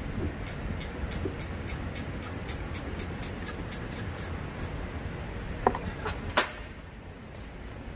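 Workshop repair noises: light metallic clicking, about four clicks a second, which stops about four and a half seconds in, then two sharp metal knocks near the end, over a low steady hum.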